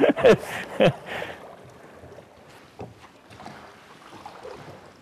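Oars dipping and splashing as a small wooden rowboat is rowed across a cave lake, with faint scattered water clicks. A man's voice exclaims briefly in the first second.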